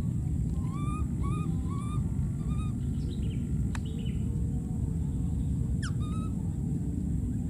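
A run of about four short, rising animal calls about a second in, and another near six seconds, over a steady low rumble; a sharp click sounds near four seconds.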